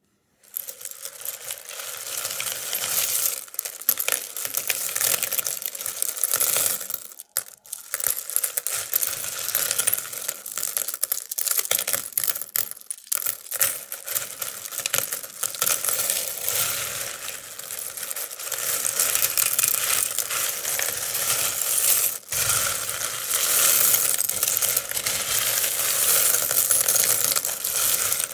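A large heap of mostly plastic sewing buttons stirred, scooped and let fall through fingers in a wooden bowl: a dense, continuous clicking and clattering, breaking off briefly about seven seconds in and again about twenty-two seconds in.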